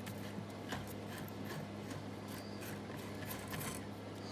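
Quiet room noise: a steady low hum with scattered faint clicks and light handling sounds.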